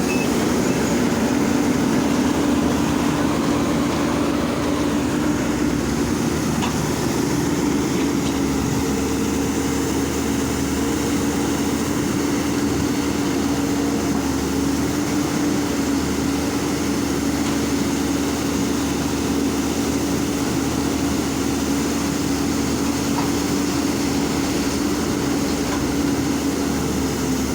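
Hydraulic excavator's diesel engine running steadily, with a held low hum and no pauses.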